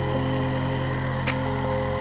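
Background music: held synth-like chords with a soft percussive tick about one and a half seconds in.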